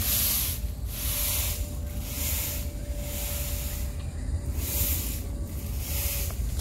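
A high, insect-like hiss swelling and fading roughly once a second, over a steady low rumble on the microphone.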